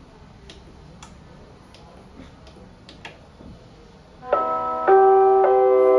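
Clock ticking lightly, about two ticks a second. About four seconds in, an electronic chime sounds three notes in quick succession that keep ringing: the chime that comes before the announcement of a school period.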